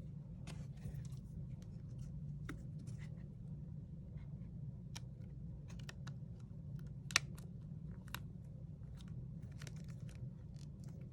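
Light clicks and scratches of a smartphone and small repair tools being handled during reassembly, with one sharper click about seven seconds in, over a steady low hum.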